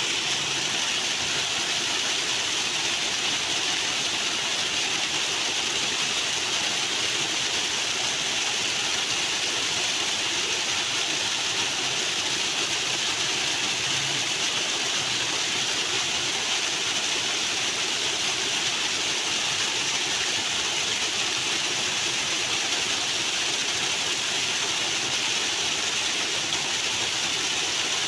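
Flowing water rushing steadily, an even, unbroken hiss.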